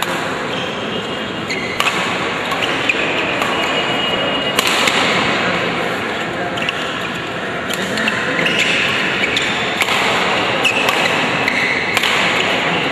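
Badminton rally: rackets strike the shuttlecock with sharp cracks every couple of seconds, amid short high shoe squeaks on the court floor and the steady murmur of a large hall.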